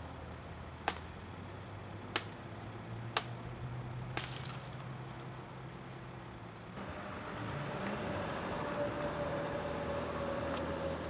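Mercedes-Benz Sprinter 4x4 van's engine running at a steady idle, with four sharp clicks over the first few seconds. About seven seconds in it grows louder and a steady whine joins it as the van pulls up a steep dirt slope in four-wheel-drive low range.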